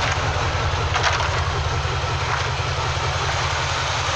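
Chevrolet 6.0 L V8 idling with a fast, even low pulse and a light click about a second in. The engine is misfiring (trouble code P0300, random misfire); the back two cylinders aren't firing and the spark is weak, which the owner thinks may be burnt valves.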